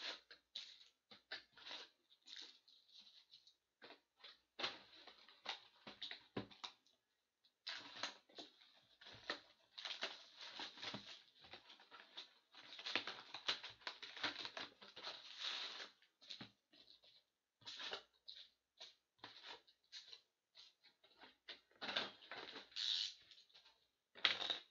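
Foil-wrapped SP Authentic hockey card packs crinkling and rustling as they are handled, pulled from their cardboard boxes and stacked, in irregular bursts with short pauses.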